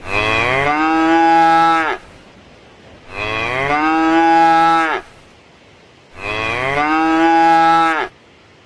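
A cow mooing three times, each a long moo of about two seconds, spaced about three seconds apart, each dropping in pitch as it ends.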